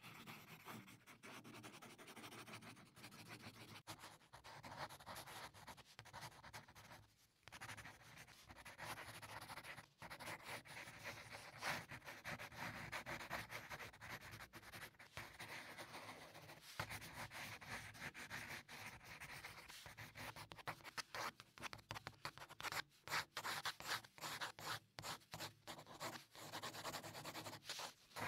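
Faint pencil scratching on drawing paper as a face is sketched: runs of strokes with short pauses, and a quicker series of short strokes about three-quarters of the way through.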